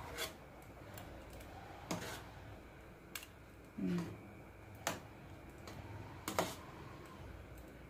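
Stainless steel ladle clinking against the rim of a stockpot and a bowl: about six sharp, irregularly spaced taps while foam is skimmed off boiling chicken broth.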